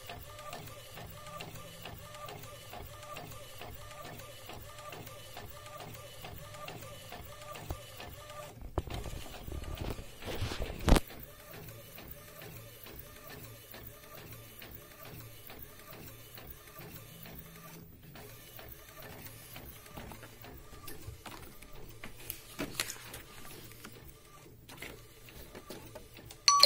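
Epson L800 inkjet printer printing, its print-head carriage shuttling back and forth with a steady, repeating motor whine. About nine seconds in the whine stops and a louder rush follows, ending in a sharp click, after which only faint clicks remain.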